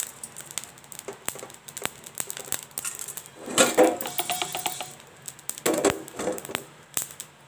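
Cumin seeds dry-roasting in a steel kadai without oil, crackling with many small clicks as they heat. The seeds are moved about in the pan with a louder metallic scraping rush about three and a half seconds in, and a shorter one near six seconds.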